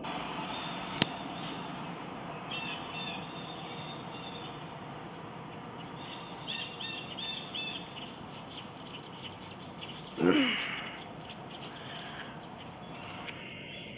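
Wild birds chirping and singing in short repeated high notes over steady outdoor background noise. A single sharp click comes about a second in, and about ten seconds in there is a brief, louder sound that slides down in pitch.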